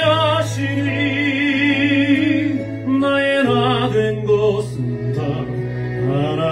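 A man singing a slow Christian praise song into a microphone over a musical accompaniment, holding long notes with a wide vibrato, with a change of note about three and a half seconds in.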